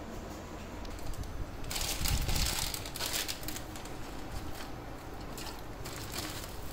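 Plastic pasta packet crinkling and rustling in irregular bursts as dried fettuccine is tipped into a steel pot of water, starting a second or two in after a steady hiss.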